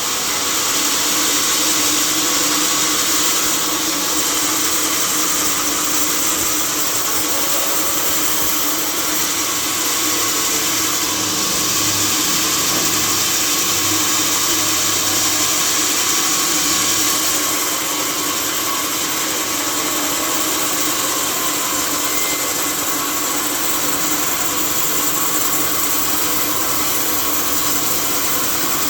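Sawmill saw running steadily, with a loud, even rushing noise that eases slightly about two-thirds of the way through.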